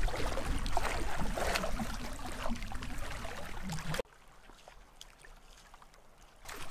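River water lapping and splashing at the shore, which cuts off abruptly about four seconds in, leaving a much quieter background.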